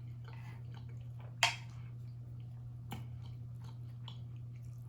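Close-miked chewing and mouth noises from a person eating, with one loud wet smack about a second and a half in and a smaller click near three seconds, over a steady low electrical hum.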